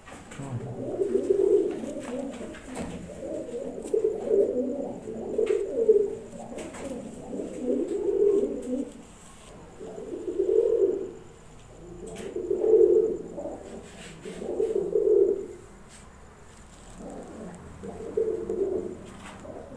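Domestic pigeons cooing over and over, a low phrase roughly every two seconds.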